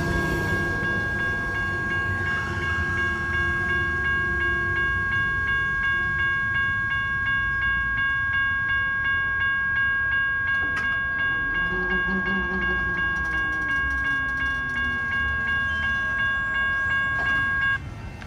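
General Signals Type 1 electronic railroad crossing bell ringing a steady, fast, repeating electronic ding. A passing Sprinter passenger train rumbles under it in the first few seconds. The bell cuts off abruptly near the end as the crossing clears.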